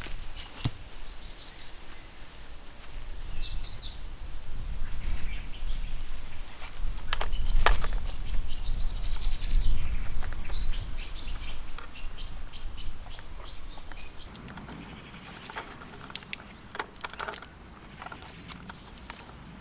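Small birds chirping with short high calls, over scattered clicks and rustles of cable bundles being handled. A deep rumble swells in the middle and is the loudest part.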